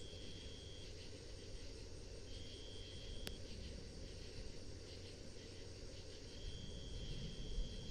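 Crickets trilling at night: a steady high trill that runs in long stretches with short breaks, over a faint low rumble. A single sharp click comes about three seconds in.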